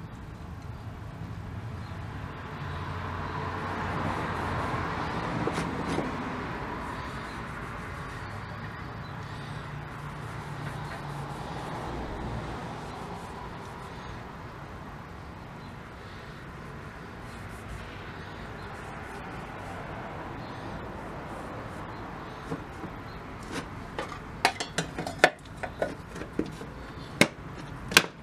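Rag rubbing paste wax onto a steel screwdriver shank: a steady scrubbing noise that swells and eases. Near the end come a string of sharp clicks and knocks.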